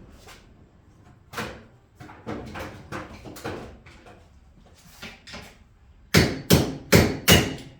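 Hammer blows on a part clamped in a bench vise: scattered knocks, then four loud strikes in quick succession near the end, driving out a stuck piece.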